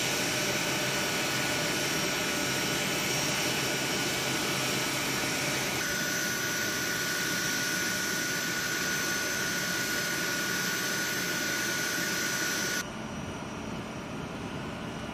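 Boeing C-17 Globemaster III's turbofan engines running at ground idle: a steady rushing jet noise with high-pitched whines laid over it. The whine shifts about six seconds in, and the sound drops to a quieter, duller level about thirteen seconds in.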